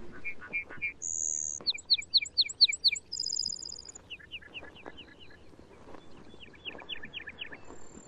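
Male lark bunting singing a varied song: a few short notes, a high steady whistle, then fast trills of repeated slurred notes, a rapid buzzy trill, and further trilled series near the end.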